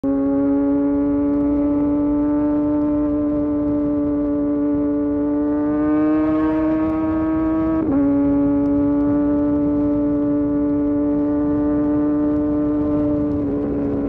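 Kawasaki Ninja sport-bike engine running hard at highway speed, its steady note creeping up in pitch and then dropping abruptly about eight seconds in as it shifts up a gear, then holding steady. Wind and road noise run underneath.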